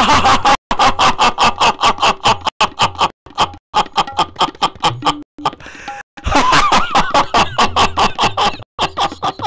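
A man's loud, frenzied laughter in rapid 'ha-ha-ha' pulses, about five a second, in several long runs with short breaks between them.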